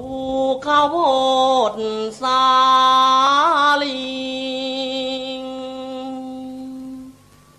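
A single voice chanting in long drawn-out sung notes that slide between pitches, with a wavering swell about three and a half seconds in. It then holds one long steady note for about three seconds and breaks off near the end.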